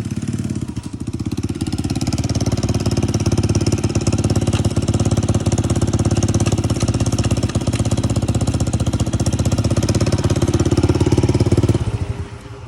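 Engine of a 150cc single-cylinder motorcycle running in a rapid, even beat on a test run after repair. It gets louder over the first couple of seconds, holds steady, then drops off sharply near the end.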